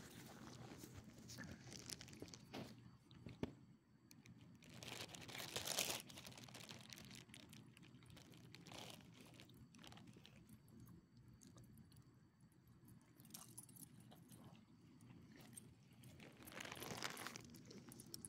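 Faint crunching and chewing of small dogs eating rotisserie chicken scraps off gravel, with scattered light clicks and jingling of collar tags and two louder scuffling bursts, about five seconds in and near the end.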